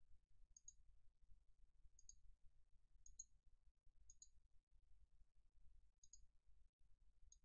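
Six faint computer mouse clicks, one to two seconds apart, over near silence.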